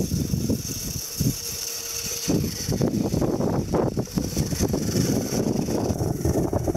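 1/10-scale RC FJ40 crawler's electric motor and gears whining steadily as it drives over hard-packed snow, with rough rumbling noise underneath that eases briefly about a second in and returns.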